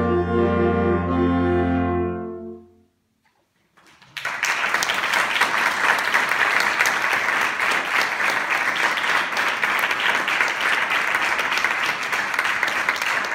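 A saxophone quartet, a baritone saxophone among them, holds its final chord and releases it about two and a half seconds in. After a second of near silence, the audience applauds.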